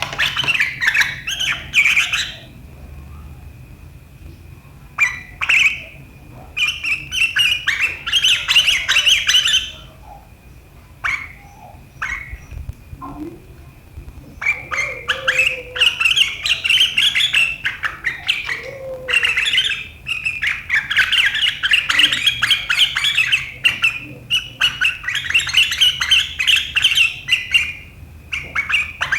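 Sooty-headed bulbul (kutilang) giving sharp, rapid chattering 'riwik' calls in bursts a few seconds long, with a quieter stretch in the middle.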